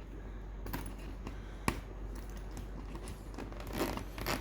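Light scattered clicks and rustling, with one sharper click about a second and a half in, over a low steady hum.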